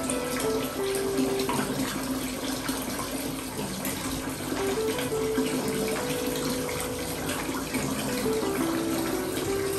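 Bath water running steadily, with a simple background melody of held notes stepping up and down over it.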